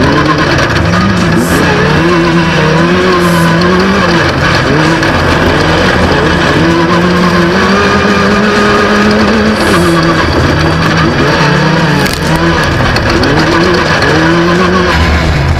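An off-road race vehicle's engine running hard, its pitch rising and falling again and again as it revs up and eases off, over a constant rush of driving noise.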